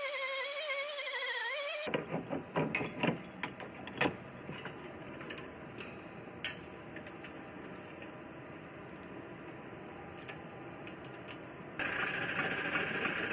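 Short crackling bursts and sharp clicks from welding tabs onto a car's quarter-panel edge, likely with a MIG welder. This comes between a wavering whine in the first two seconds and a louder steady hiss near the end.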